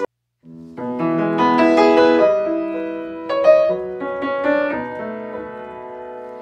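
Solo piano playing a slow introduction, starting after a brief moment of silence and dying away near the end.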